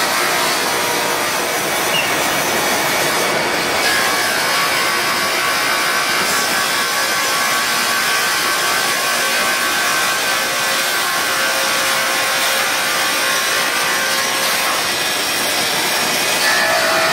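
Fiber cement board edging machine running, its motor-driven cutting heads grinding the board edges in a steady, loud grinding noise, with a faint steady whine through most of it.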